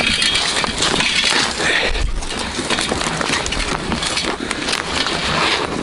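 Footsteps crunching through deep snow, with twigs and branches snapping and scraping against clothing and gear in a dense, continuous crackle.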